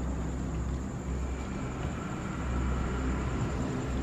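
Steady low background rumble with hiss and a faint steady high whine, with no distinct footsteps or knocks.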